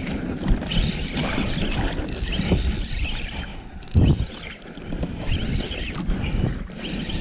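Wind buffeting the microphone over water lapping against a small outrigger boat's hull, with a couple of short knocks about two and four seconds in.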